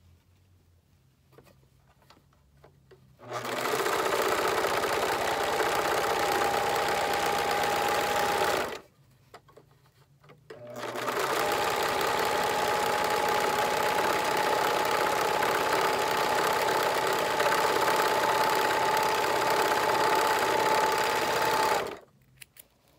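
Electric sewing machine running in two long stretches, about five seconds and then about eleven, with a steady whine and a short pause between. It is stitching the inside edge of the seam so the fabric won't fray.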